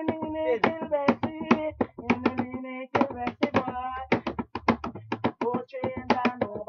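Hands drumming a quick rhythm of sharp slaps on a wooden tabletop, with a voice singing or chanting along in long held notes.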